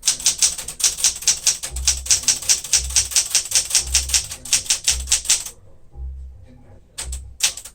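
Keys of a 1975 Smith-Corona Galaxie Twelve manual typewriter being typed in a fast, steady run of sharp strikes, about five or six a second. The run stops after about five seconds, and a few more strikes come near the end.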